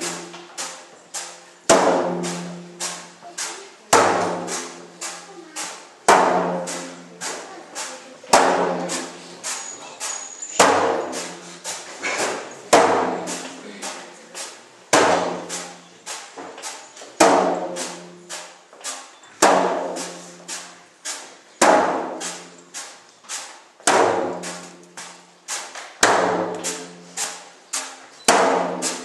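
Percussion-driven music with a steady beat: a strong hit about every two seconds with lighter hits in between.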